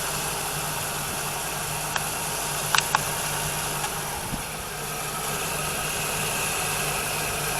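2000 Chevy Cavalier's 2.2-litre four-cylinder engine idling steadily, its accessory belt and tensioner pulley spinning quietly and smoothly with the AC compressor off. A few short sharp clicks about two to three seconds in.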